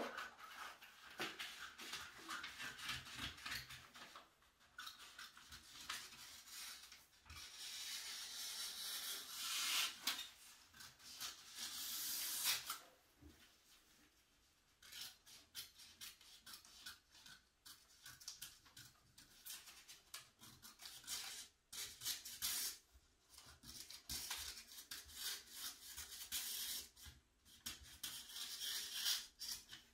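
Scissors cutting a paper sewing pattern along its outline, with the paper rustling and sliding as it is handled. The sound is faint and comes in irregular stretches, with a short pause about halfway through.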